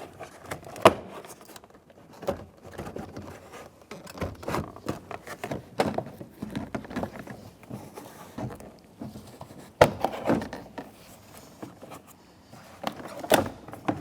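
Plastic interior door trim being handled and worked loose: irregular clicks, knocks and light scrapes, the sharpest knocks about a second in, near ten seconds and near the end.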